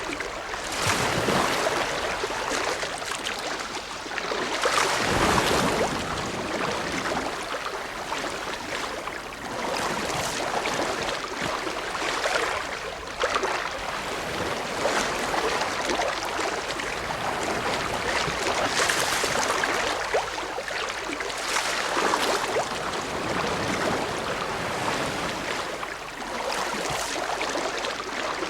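Ocean waves breaking and washing in: a continuous rush of surf that swells and eases every few seconds.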